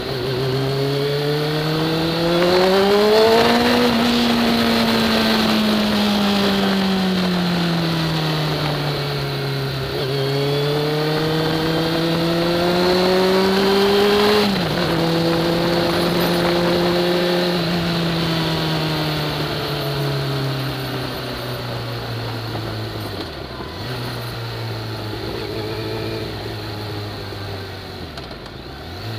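Sport motorcycle engine under way: its pitch climbs hard as the bike accelerates, eases off, climbs again, then drops sharply on a gear change about halfway through. It then runs at lower revs, slowly falling, with two brief dips near the end as the throttle is rolled off.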